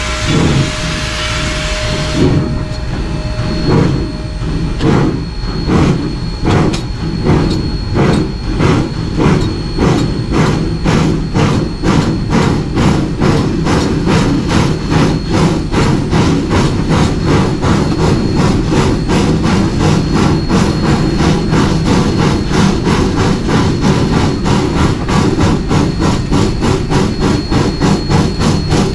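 Rio Grande Southern No. 20, an 1899 4-6-0 ten-wheeler steam locomotive, pulling away with its train: the exhaust chuffs start slow, about two a second, and quicken steadily to about four a second as it gathers speed. A loud hiss fills the first two seconds before the chuffs take over.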